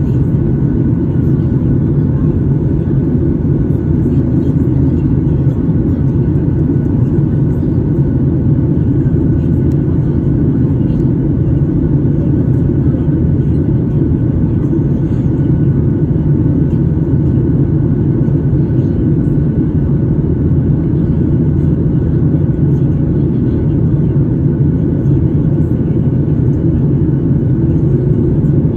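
Steady cabin noise of a Boeing 737-800 climbing out after takeoff: a loud, even rumble of its CFM56-7B turbofans and rushing air, heard at a window seat over the wing, with a faint steady whine above it.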